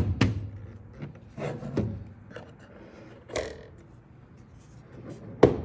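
A digital wall clock handled on a wooden tabletop: a series of knocks and taps with rubbing and scraping between them as the clock is turned over and set on its stand. The loudest knocks come at the very start and near the end.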